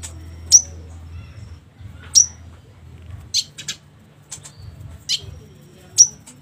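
Olive-backed sunbird calling: sharp, high single chirps about once a second, a few close together, over a faint low steady hum.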